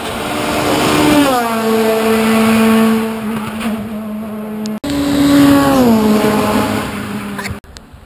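Race car engines at high revs on a hill-climb course, heard as two separate passes split by an abrupt cut: in each the engine note drops in pitch and then holds steady and loud.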